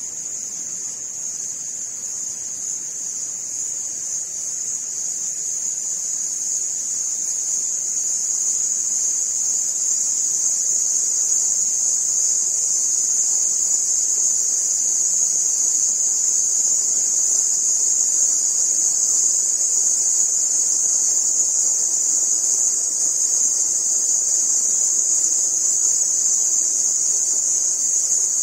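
A steady, high-pitched insect buzz, swelling over the first ten seconds or so and then holding.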